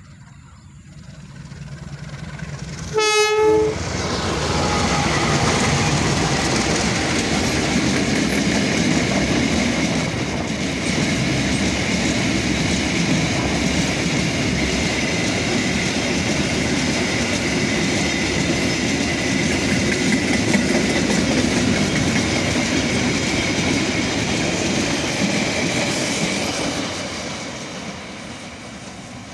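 Indonesian CC201 and CC203 diesel-electric locomotives hauling a long train of Pertamina tank wagons. One short horn blast comes about three seconds in. Then the locomotives and wagons roll past with a steady rumble of wheels on rail, fading near the end.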